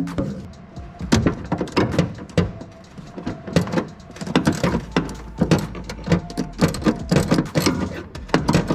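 Socket ratchet on an extension clicking in quick runs with short pauses, backing out bumper bolts.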